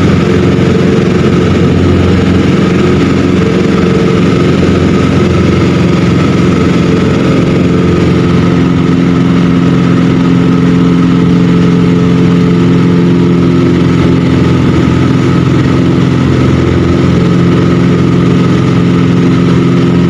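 Aircraft engine droning steadily in flight, a loud unchanging hum made of several steady low tones.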